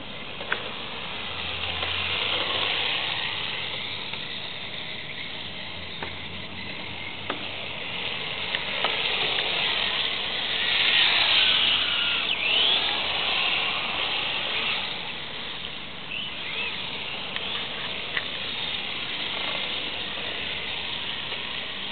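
1/10-scale radio-controlled drift cars sliding on asphalt: a hiss of tyres and drivetrain that swells and fades as they pass, loudest a little past the middle. Brief whines sweep up and down in pitch as the cars go by.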